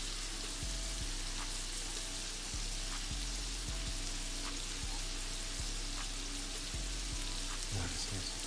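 Flour-coated mushrooms deep-frying in hot grease, a steady sizzle.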